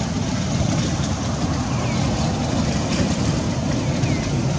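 Steady rumbling noise, strongest low down, with a few faint high chirps that fall in pitch.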